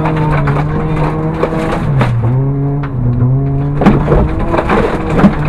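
Ford Fiesta rally car's engine heard from inside the cabin, running at steady high revs, dipping briefly about two seconds in and picking up again. Sharp knocks and clatter sound over it throughout.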